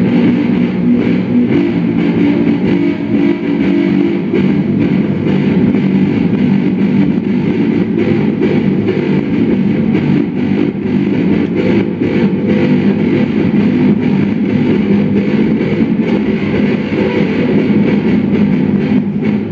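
Electric guitar played through an amplifier in a loud, steady, dense texture of held low notes, as part of an improvised experimental music performance.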